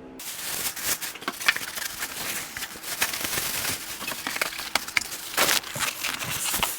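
Packing material rustling and crackling as it is handled, with many small clicks and knocks throughout.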